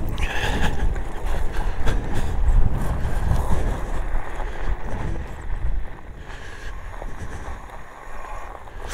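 Wind buffeting the microphone and e-bike tyres rolling over a rough gravel track, an uneven low rumble with scattered knocks from the bumps that drops off after about six seconds.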